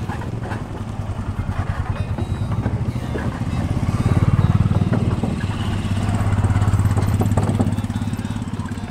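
Motorcycle engines running at low speed as bikes roll slowly across a wooden plank bridge. The sound swells as they come close and pass, with a few short knocks near the end.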